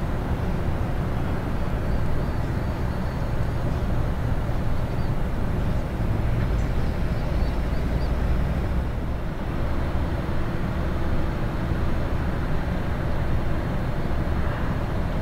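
Steady low mechanical rumble from heavy machinery, with a few faint high squeaks about halfway through.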